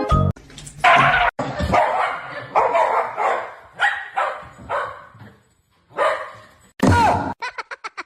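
A dog barking and yipping several times, with a pause before the last bark, followed near the end by a fast run of short sounds.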